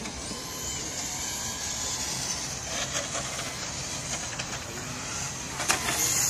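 1/8-scale RC cars running on the track, a steady high-pitched mechanical whir, with a sharp click a little before the end.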